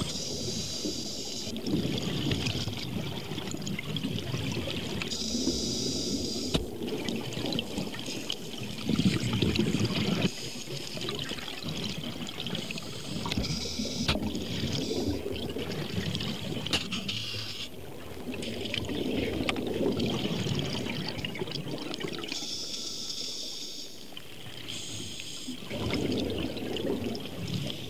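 Scuba breathing heard underwater through a regulator: a hiss on each inhale alternating with a rumbling gush of exhaled bubbles, about four slow breaths.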